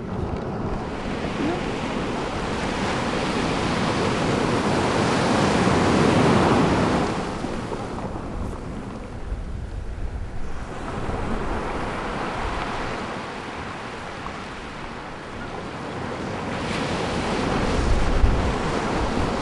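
Ocean waves: a rushing wash that swells to a peak about six seconds in, dies down, and builds again near the end.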